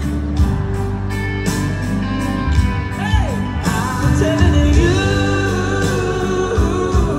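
Live country-rock band playing over the concert sound system, with drums and bass under a lead line that bends up and down in pitch.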